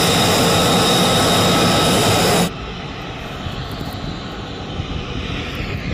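F-35B's jet engine whining close by with steady high tones over a loud rush. About two and a half seconds in it cuts to a quieter, more distant jet engine noise as the jet moves along the runway.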